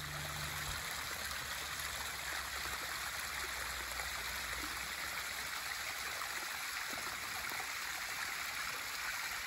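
Small rivulet of water trickling down a muddy channel over fallen leaves, a steady running-water sound.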